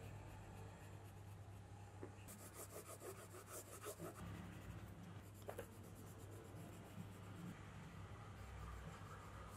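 Pencil scratching across paper in quick, hard scribbling strokes, busiest from about two to four seconds in, with one sharper scrape a little later, over a faint steady low hum.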